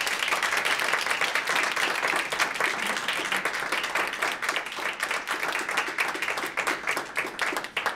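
Audience applauding: a dense, steady run of many hand claps that begins to thin out near the end.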